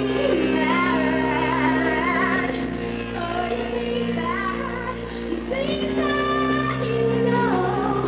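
A woman singing live into a microphone, her voice wavering on held notes, over long sustained chords from the band.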